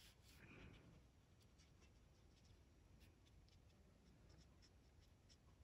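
Faint scratching of an alcohol marker's brush nib on paper as it dabs little dots and short strokes, heard as scattered soft ticks over quiet room tone.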